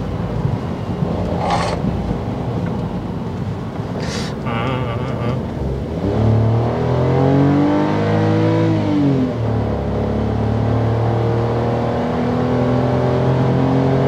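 Hyundai Casper's naturally aspirated 1.0 MPI three-cylinder engine heard from inside the cabin while accelerating. About six seconds in, the engine note climbs, falls back at a slow gear change, then climbs steadily again. The revs rise loudly, which is typical of the non-turbo engine being worked hard.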